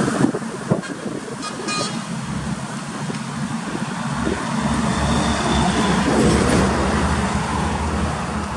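Heavy cattle trucks passing on a highway, engine and tyre noise, with a brief horn toot about a second and a half in. A truck's engine rumble grows louder from about four seconds in as it approaches.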